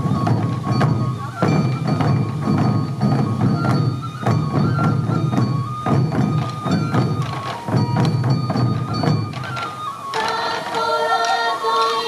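Sansa odori ensemble: many waist-slung taiko drums beaten together in a driving rhythm, with a bamboo flute playing a melody over them. About ten seconds in the drums drop out and the flute carries on alone.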